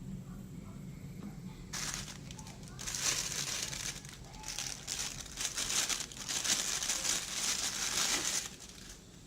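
Plastic packaging crinkling and rustling as it is handled, in irregular bursts that start a couple of seconds in and stop shortly before the end.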